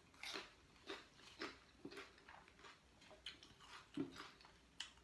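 Faint chewing of a mouthful of food eaten by hand, soft short wet clicks about twice a second, with one louder click about four seconds in.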